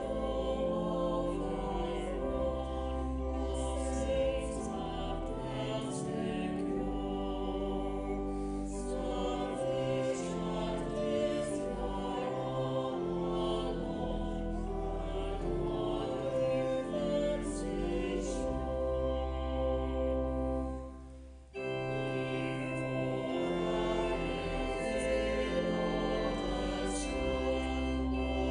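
Organ music with a choir singing: slow sustained chords over deep bass notes. The music dips and breaks off about 21 seconds in, and a new passage begins at once.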